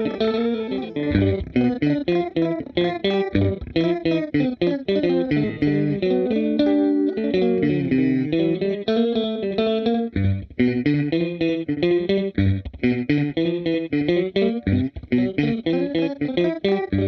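Electric guitar played through a Seesaw V2 pitch-shifter pedal: quick picked notes, with the pitch sweeping down and back up near the middle.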